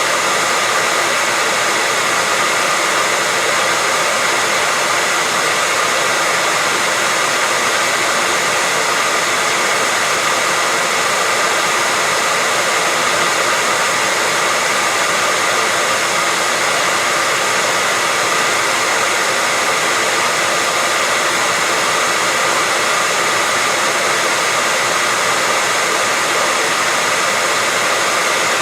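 Hair dryer running steadily: a continuous, even hiss of rushing air with a faint whine from its motor.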